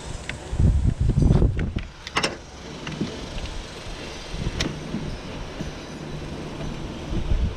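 Wind buffeting the microphone in low rumbling gusts, with a few sharp clicks and small knocks from hands working parts.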